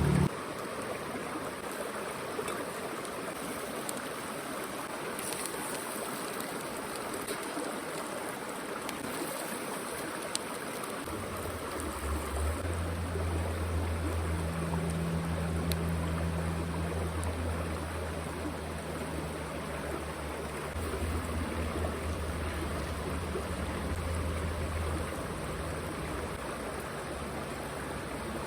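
A stream rushing and trickling steadily. A low steady hum joins about eleven seconds in and fades near the end.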